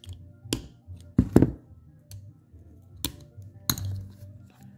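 Several sharp metal clicks and taps of pliers and a flat screwdriver against a power window motor's output gear and shaft, the loudest a pair about a second in, over steady background music.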